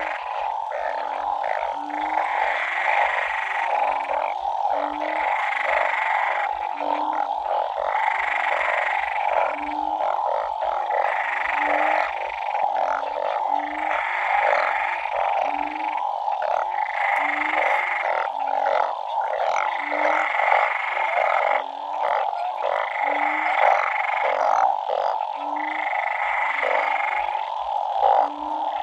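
Dense chorus of many frogs calling continuously. A low call repeats about once a second, and higher calls come in regular pulses about every second and a half.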